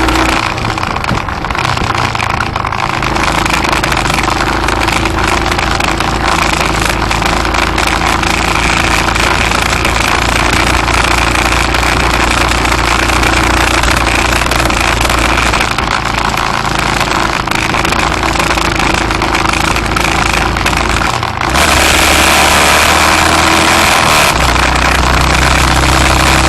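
Vehicle engine running with road noise while driving, loud and steady. The engine note dips briefly and then picks up louder about 21 seconds in.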